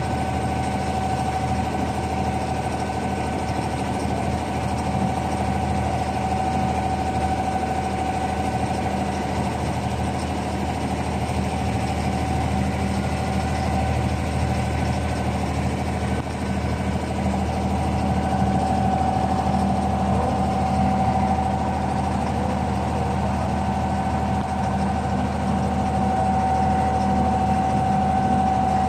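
Diesel inboard engine of a wooden abra water taxi running steadily under way, heard from aboard: a low, even drone with a thin steady whine above it.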